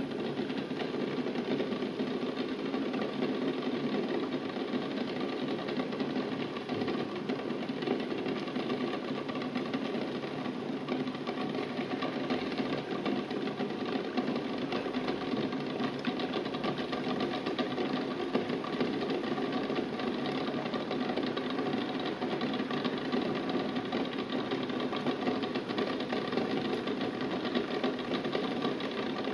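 Water at a rolling boil in a stainless steel saucepan, bubbling steadily, with a fast, even rattle of the eggs knocking against the pot.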